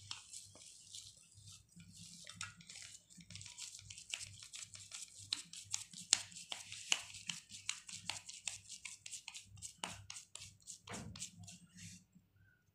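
Hands patting and pressing mashed potato mixture into aloo tikki patties: a fast, irregular run of soft, sticky clicks, with a faint low hum beneath.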